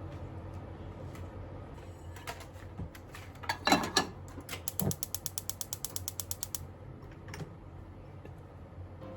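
A loud short clatter, then a rapid, even run of sharp ratchet-like clicks, about six a second for two seconds, over a low steady hum.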